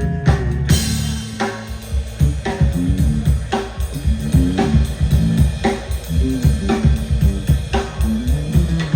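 Live instrumental jam led by a drum kit: steady rhythmic kick, snare and cymbal hits over low bass notes, with a cymbal crash under a second in.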